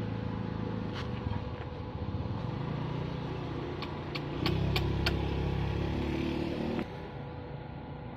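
Small engine running at low speed, louder from about halfway through, then cutting out abruptly near the end, with a few sharp clicks along the way.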